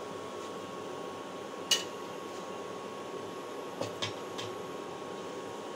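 Induction cooktop running at full power, its cooling fan giving a steady hum with a thin constant whine. One sharp click about two seconds in and a few lighter clicks about four seconds in.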